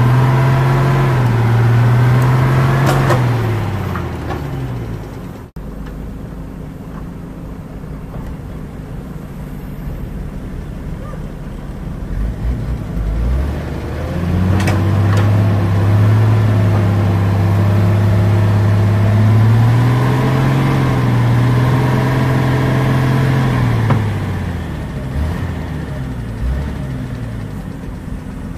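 JCB backhoe loader's diesel engine working hard under load as it drags chained logs through mud. It runs at high revs for the first few seconds, drops and eases back, then revs up again for about ten seconds before easing off near the end.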